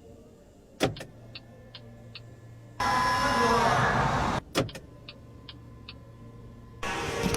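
Car power window motor running for about a second and a half and stopping abruptly, then starting again near the end. Clicks and a few short, evenly spaced electronic beeps fall between the runs.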